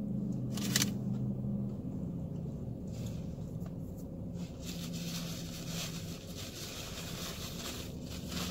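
Quiet car-cabin sound: a low hum that fades in and out, one sharp click about a second in, and a soft steady hiss through the second half.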